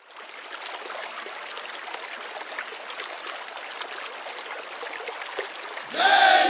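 Steady rushing, trickling noise like running water, with faint crackles. About six seconds in, a loud held tone with several overtones starts and slides slightly in pitch.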